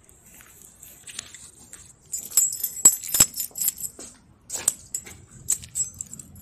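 Keys jangling and metal clinking at a glass door's stainless steel pull handles as the door is unlocked. It starts about two seconds in, with two sharp knocks near the three-second mark.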